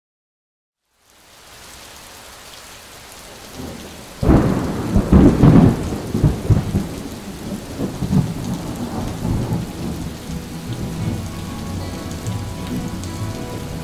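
Thunderstorm: steady rain comes in about a second in, then a loud thunderclap about four seconds in rolls on as rumbling for several seconds before dying back under the rain.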